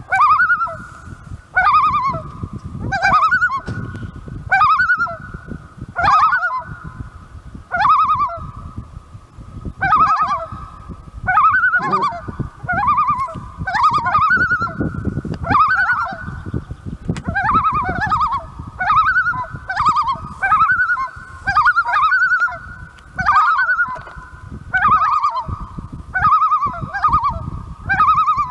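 Common loons giving wavering tremolo calls, one call every second or two, with more loons calling steadily behind.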